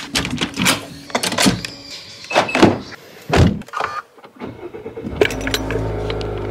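A door handle and latch clicking, then a run of clicks and knocks from inside a car. About five seconds in, the car's engine starts and settles into a steady low hum.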